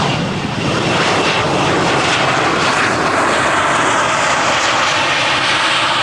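Airbus A321neo jet airliner's engines at takeoff power, a loud, steady jet noise that builds just before and holds.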